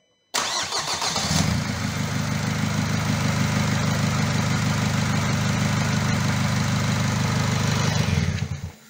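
Nissan Qashqai 2.0 dCi four-cylinder diesel engine starting: it fires up abruptly and catches within about a second. It then idles steadily with an even low drone for about seven seconds, and stops near the end when it is switched off.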